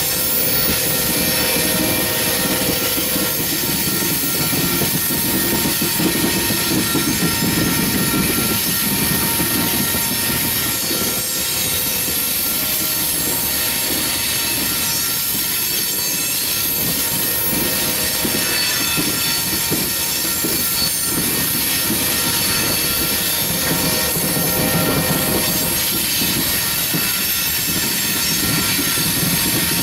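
Coal train's freight cars rolling steadily past: a continuous rumble of wheels on rail with several steady high squealing tones over it.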